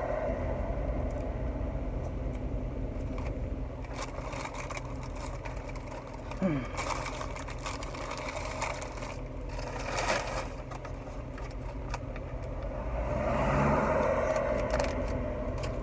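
Steady engine and road hum heard inside a car's cabin, with a few brief clicks and rustles.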